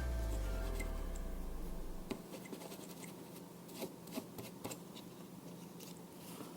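Faint scratching and scattered light clicks of the corroded circuit board inside a TV-style air-conditioner remote being scrubbed clean, after a low rumble that fades out about two seconds in.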